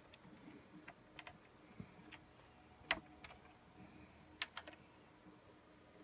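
Faint, irregular clicks and taps of small plastic parts and a cable connector being handled and pressed into place on a server motherboard, about ten in all, with two sharper clicks near the middle.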